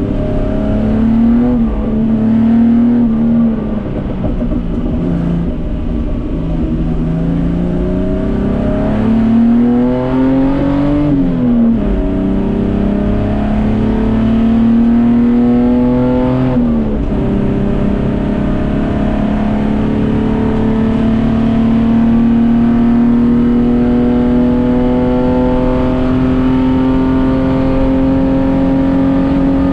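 A Datsun 240K race car's straight-six engine under load, pulling through the gears. The pitch climbs and drops sharply at upshifts about 11 and 17 seconds in, then rises slowly and steadily for the rest of the stretch.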